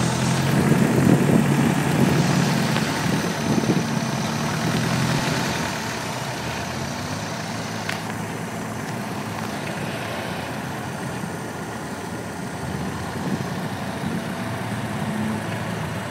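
Rock buggy's engine running at low revs, louder and rising and falling through the first five seconds, then idling steadily. A single sharp click about eight seconds in.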